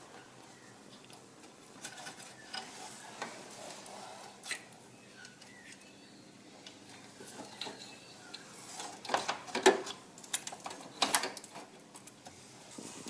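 Hands working the plastic electrical connector off an alternator: scattered small clicks and light knocks, with a run of louder sharp clicks and rattles about nine to eleven seconds in.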